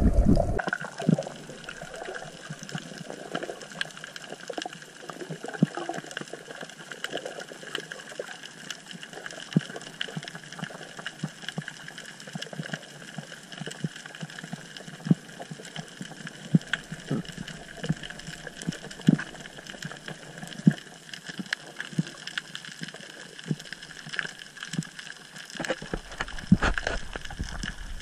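Underwater ambience heard through a GoPro housing: a faint steady hiss scattered with irregular sharp clicks and crackles. Near the end comes a louder low rush of moving water.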